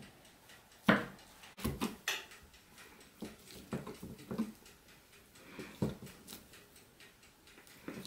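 Kitchen knife chopping a block of butter into cubes on a wooden cutting board: irregular knocks as the blade goes through and taps the board. The loudest knock comes about a second in, with a quick run of them around two seconds.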